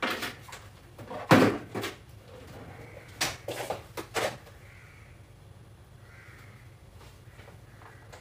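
Kitchen handling noises: a drawer and utensils knocking, the loudest a bang about a second and a half in, then a few sharp clicks around three to four seconds in at the gas stove knob.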